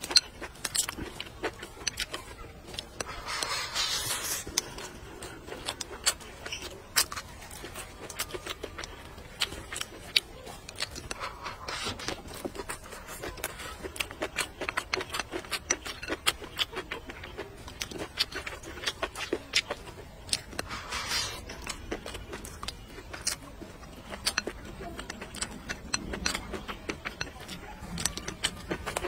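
Close-miked eating: chewing and mouth sounds with frequent sharp clicks and scrapes of wooden chopsticks against a porcelain bowl of rice.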